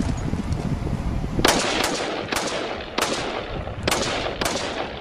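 Six shots from an AR-15-style rifle in 5.56, fired at an uneven pace about half a second to a second apart, each with a short ringing tail.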